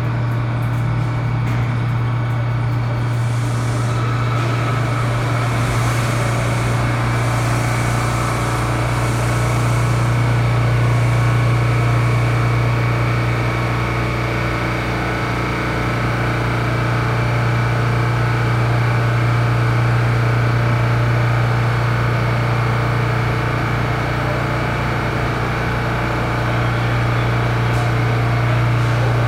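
New York City subway train standing at the platform, its onboard equipment giving a loud, steady low hum with several steady tones above it, swelling slightly now and then.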